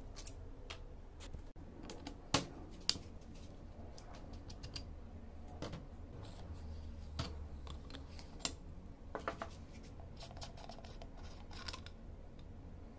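Irregular small metal clicks and taps of hand tools and parts being handled while an old, rusty air stapler is taken apart, with two louder clicks a couple of seconds in and a quick run of clicks near the end.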